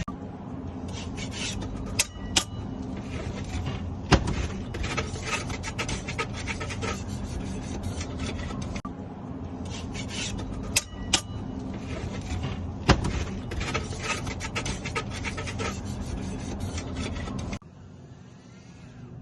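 Hand tool scraping and rubbing on mortar in quick irregular strokes, with a few sharp knocks, over a steady low hum. The sound drops off abruptly near the end.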